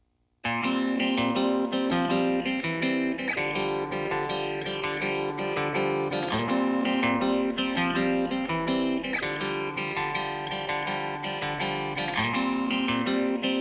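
Background music with plucked guitar, starting about half a second in after a brief silence.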